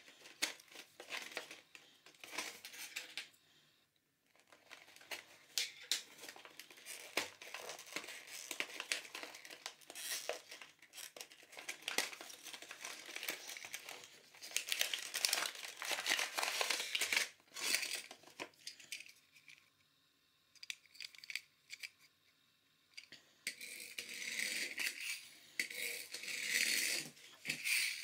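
Cardboard toy box being opened by hand and its clear plastic packaging crinkled and torn, in bursts of rustling and small clicks with a few short pauses.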